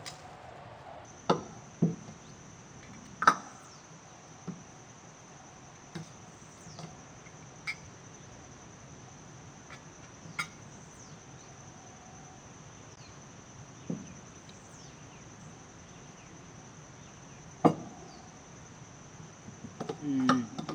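Insects droning in one steady high tone, with about a dozen sharp knocks and clinks of dishes and a serving spoon on a table scattered through it.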